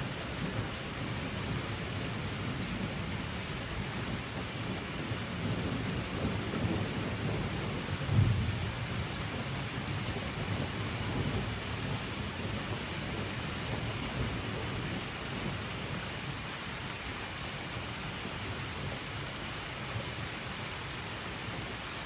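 Steady rain falling, with thunder rumbling low underneath. A louder thunderclap comes about eight seconds in, and the rumble eases off in the second half.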